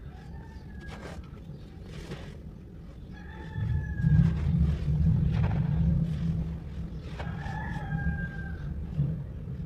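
Dry, dusty red clay being crumbled and squeezed by hand, with a soft gritty crackle. A bird calls three times, and a low rumble swells for a few seconds midway and is the loudest sound.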